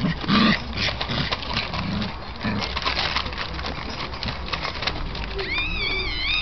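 Bernese mountain dog puppies playing and scuffling, with many sharp clicks and scratches from claws on paving and paper. A loud short puppy sound comes right at the start, and a high, wavering puppy whine lasting about a second comes near the end.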